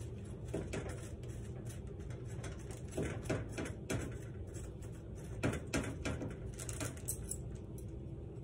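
Metal forks scraping and shredding baked spaghetti squash into strands: a run of short, uneven scrapes and clicks, busiest about three seconds in and again near the six-second mark, over a steady low hum.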